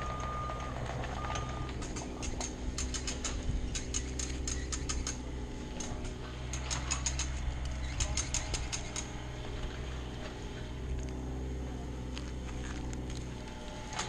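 An engine running steadily at idle, with bursts of rapid light metallic clicking from about two to nine seconds in. A short beep sounds right at the start.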